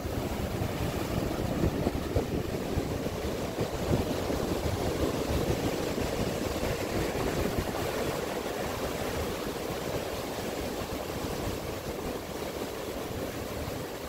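Ocean surf breaking and washing up a sandy beach: a continuous rushing roar of waves and foam, heaviest in the lower range, swelling in the first half and easing slightly toward the end.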